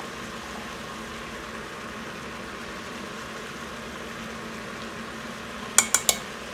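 Chicken and vegetables sautéing in an Instant Pot's stainless steel inner pot: a steady, low sizzle. Near the end come three quick, sharp clicks.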